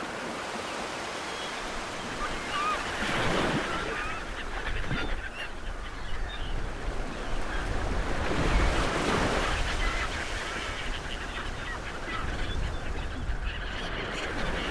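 Ocean waves washing onto the shore in slow surges, two swelling about three and eight seconds in, with short bird calls over the surf, mostly in the first few seconds.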